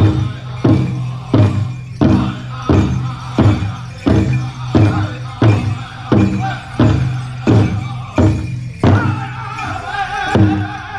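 Powwow drum group playing a chicken dance song: a big powwow drum struck in unison in a steady beat of about three strikes every two seconds, under group singing. The singing comes up stronger about nine seconds in.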